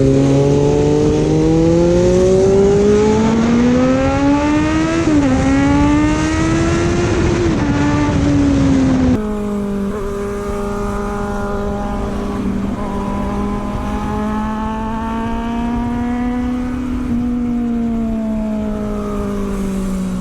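Superbike engine accelerating hard, its pitch climbing, dipping briefly at a gear change about five seconds in, then climbing again. After an abrupt cut about nine seconds in, it cruises at a steadier pitch that slowly rises and falls.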